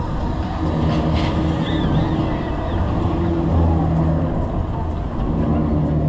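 Rumbling ride noise from inside a moving car of a spinning-arm fairground ride, with a low machinery hum that swells and fades every couple of seconds as the car swings around.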